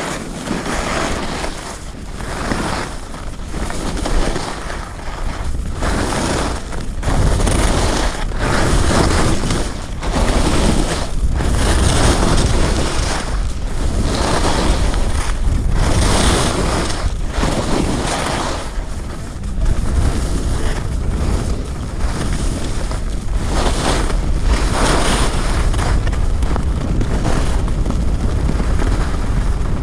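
Wind rushing over a GoPro's microphone at skiing speed, with skis hissing and scraping on groomed snow through a run of turns. It builds over the first several seconds as speed picks up.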